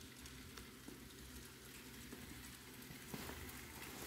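Model train running around a loop of sectional track: a faint, steady hum of the locomotive's electric motor and wheels rolling on the rails, with a couple of light clicks.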